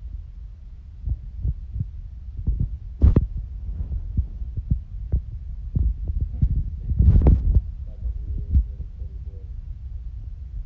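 Tinted epoxy being stirred in a mixing cup, with irregular low knocks and thumps over a low rumble. The loudest knock is about three seconds in, and a cluster of them comes about seven seconds in.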